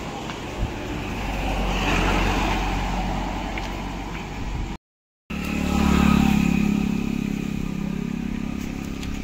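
Road vehicles passing close by on a hill road. One swells past about two seconds in, then after a brief gap in the sound a second, louder one passes with a low engine note and fades away.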